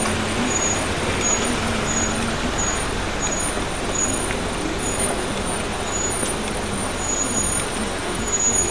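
Street traffic noise: a bus, taxi and motor scooter running slowly, a steady hum with an engine drone in the first couple of seconds. Short, faint high-pitched peeps recur at irregular intervals.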